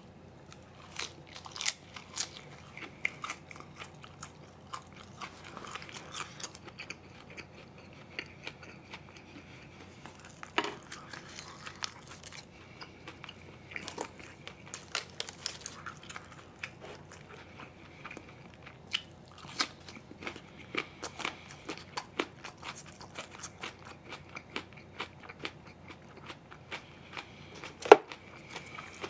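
Close-miked chewing and biting of grilled pork ribs, with scattered sharp crunches and clicks, the loudest a sharp crack about a second before the end.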